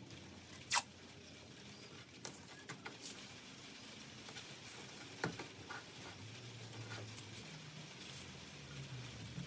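Masking tape being pulled off the roll and pressed onto timber: a few short rips and crackles, the sharpest about a second in, over a low background hum.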